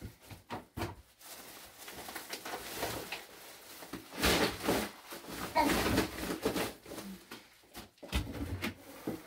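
Household handling noises from a plastic bucket and lid being moved about in a small stone room. There are a few light knocks early on, then louder rustling and scraping rushes about four and six seconds in.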